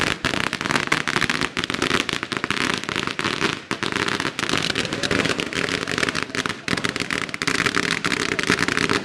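A string of firecrackers going off in a rapid, unbroken run of sharp bangs.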